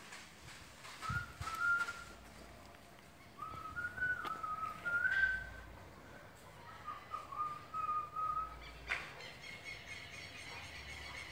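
A person whistling a short tune in three phrases of held notes that step up and down. Near the end a click is followed by a steady higher tone.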